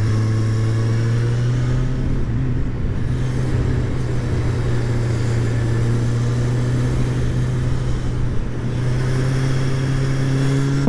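Kawasaki Z1000's inline-four engine pulling at steady, fairly constant revs under riding load through a bend, with a slight rise in pitch now and then. The engine note dips sharply right at the end.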